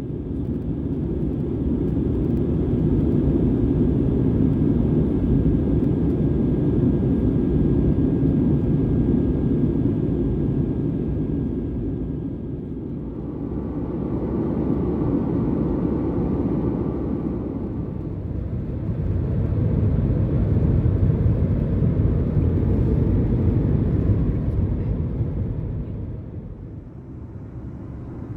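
Airbus A320 jet engines and airframe rumbling, heard from inside the cabin, swelling and easing several times, with a few faint steady tones over the rumble.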